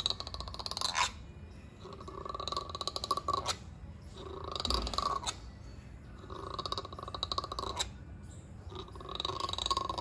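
Gray langur giving about five rasping, guttural calls, each a second or so long and about two seconds apart, the angry sounds of a langur facing someone. A sharp knock ends some of the calls.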